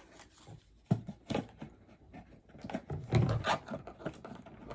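Cardboard drawer of an advent calendar box being handled and pushed back into its slot: scattered knocks and scraping, with sharp knocks about a second in and about three seconds in.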